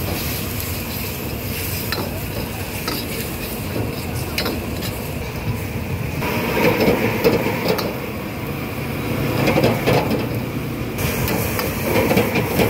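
Busy street ambience: steady traffic noise and background chatter, with scattered clinks and knocks, busiest in the middle.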